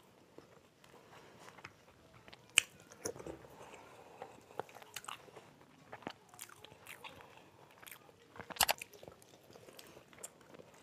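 Two people eating soft idli with sambar by hand: quiet chewing and mouth sounds with scattered small clicks, the sharpest a couple of seconds in and again toward the end.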